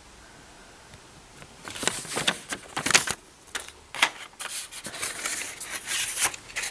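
Black cardboard packaging insert being handled and a coiled USB-to-micro-USB cable pulled out of it: a run of crisp, irregular scrapes, rustles and clicks starting about two seconds in.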